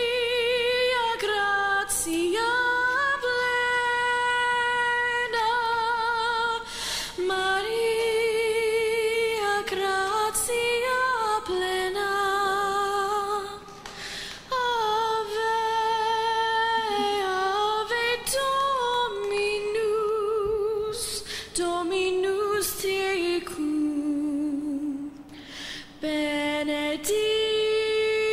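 A woman singing unaccompanied, holding long notes, some with vibrato, with short pauses for breath between phrases.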